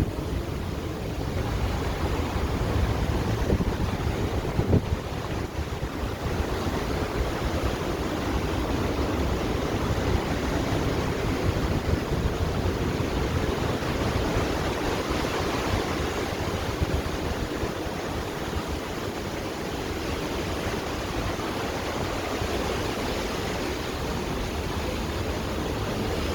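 Steady wind rushing over the microphone on a cruise ship's open deck, mixed with the wash of the sea.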